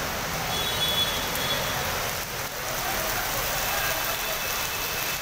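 Heavy rain pouring down and splashing on a flooded road: a steady hiss, with faint voices of people sheltering nearby.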